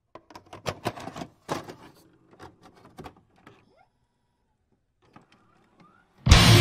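Videocassette recorder mechanism clicking and clunking as a tape loads, with a couple of short rising motor whirs. Loud guitar music cuts in suddenly near the end.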